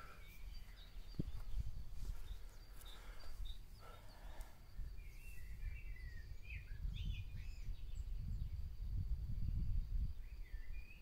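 Outdoor ambience: wind buffets the microphone in a low, uneven rumble, strongest in the second half. Birds chirp in short, quick calls from about halfway through and again near the end, over a faint steady high tone.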